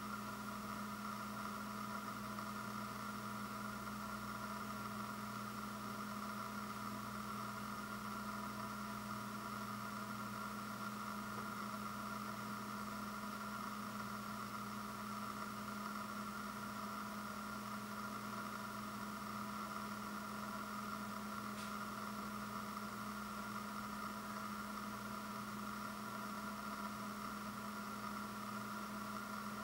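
Steady, unchanging background hum and hiss, with one faint click about two-thirds of the way through.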